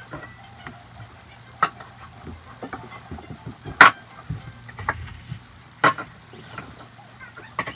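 Fabric being handled and pinned by hand: soft rustling and scraping with scattered small clicks and a few sharper ticks, the loudest about halfway, over a faint low hum.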